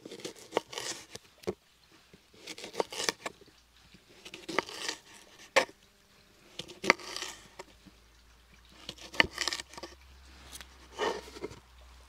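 Knife cutting food, likely the sausages for the goulash: short bursts of crisp cutting and scraping, with sharp clicks of the blade every second or two.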